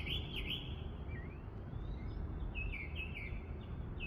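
A songbird chirping in two quick runs of repeated notes, with a longer rising whistle between them, over a steady low rumble.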